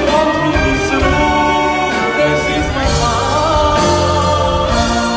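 Live Jewish music: a male singer with a microphone, backed by a live band and choir, singing a sustained, flowing melody.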